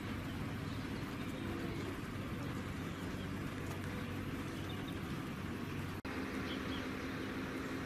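Steady low hum over outdoor background noise, with a few faint bird chirps; the sound breaks off for an instant about six seconds in.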